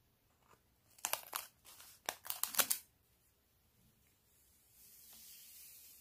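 Small powder packet from a Popin' Cookin' sushi kit torn open with a run of sharp crinkly rips, then a soft hiss of the powder pouring out into the plastic tray near the end.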